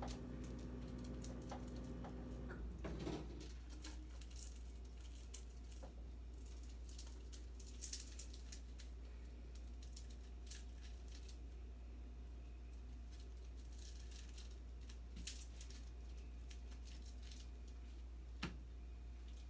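Quiet handling sounds in a kitchen: scattered light clicks and rustles as someone works at the stove, over a low steady hum. A second steady hum cuts off about three seconds in, and the sharpest click comes about eight seconds in.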